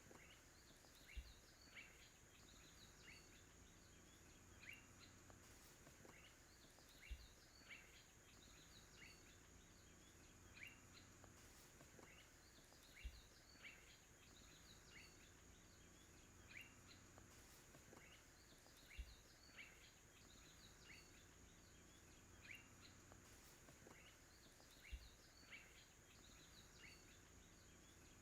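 Very faint bird chirps over a steady high-pitched tone. The same run of chirps repeats about every six seconds, each cycle opening with a soft low thump.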